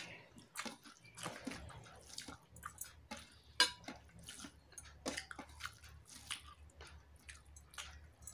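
A person chewing a mouthful of rice and fish close to the microphone, with irregular wet mouth clicks and smacks. Fingers mix rice on a steel plate.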